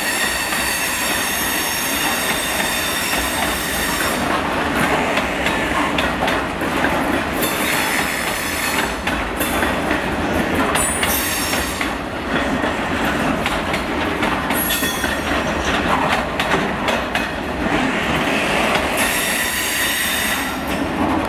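A freight train of bogie hopper wagons rolling past close by, wheels clattering over the rail joints with a steady high-pitched wheel squeal.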